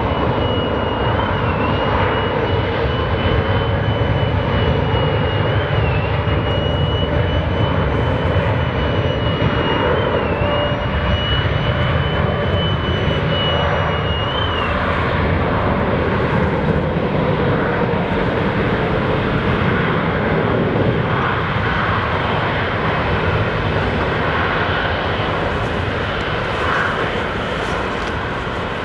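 Airbus A321 jet engines at takeoff power on the takeoff roll, a steady distant roar heavy in the low end. A thin high steady whine runs over it and stops about halfway through.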